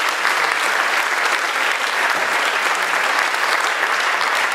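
Audience applauding, a dense, steady clapping that carries through without a break.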